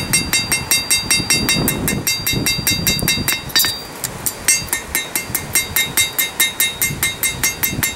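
Blacksmith's hand hammer striking hot steel on an anvil in quick, steady blows, about four a second, each leaving a bright ring from the anvil, with a brief pause a little before halfway. The blows are drawing out the fin of a forged trout bottle opener.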